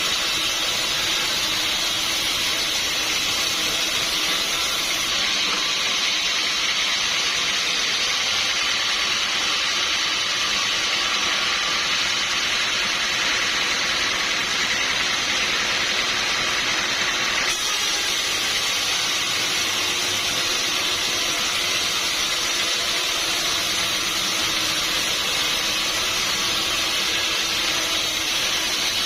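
Sawmill saw running steadily, a loud even hiss with no breaks, strongest in the upper range.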